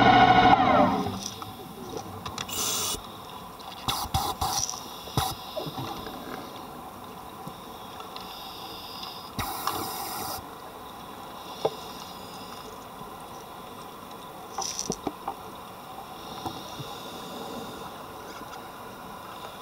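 Underwater ambience heard through a camera housing, a steady hiss with short bursts of bubbling from a scuba diver's exhaled air several times, the longest about ten seconds in. Background music fades out within the first second.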